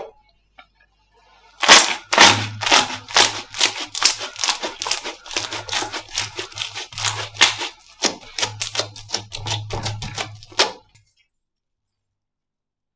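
Slime being squeezed and poked by hand, giving a rapid run of sharp wet clicks and pops, several a second. It starts after a short pause and stops abruptly near the end.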